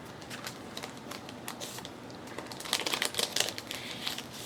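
Paper and sticker sheets being handled at a craft desk: a run of light crinkles and small taps, busiest about three seconds in.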